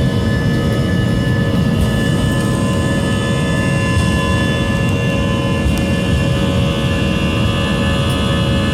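Boeing 787 jet engines heard from inside the cabin during takeoff: a loud, steady low rumble with several steady whining tones above it.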